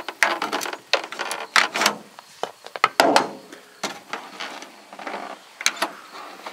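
Interior trim in a 1986 Ford F-150 cab being pried and worked loose from its metal retaining clips: a busy run of irregular knocks, clicks and scrapes.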